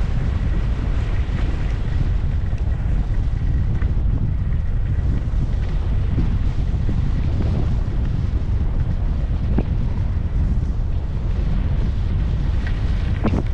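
Steady, loud wind buffeting a GoPro's microphone at skiing speed, a low rumble with the hiss of skis sliding over groomed snow under it. A few short scrapes come near the end.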